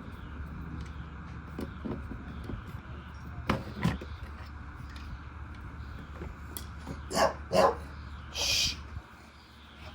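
A dog barking in two double barks, a few seconds apart, over a steady low hum that stops near the end. A short hiss comes just before the hum stops.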